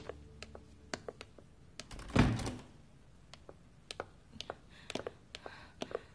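A wooden door is pushed shut with a thud about two seconds in, with scattered light clicks and taps around it.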